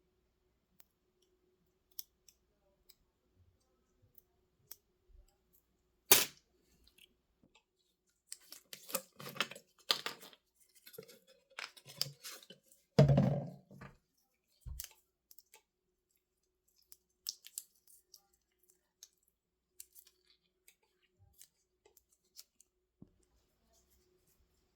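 Small tools and drone parts being handled on a workbench: scattered clicks and ticks, a sharp knock about six seconds in, and a busy stretch of clattering and rustling in the middle with a heavier thump near the end of it.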